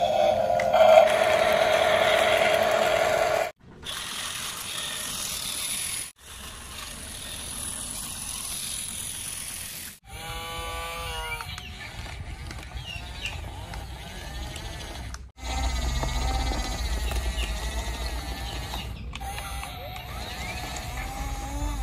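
Small electric motors and plastic gearboxes of RC toy trucks whirring, in short segments that cut off suddenly several times. A steady whine at the start, and a whine that rises and falls about ten seconds in.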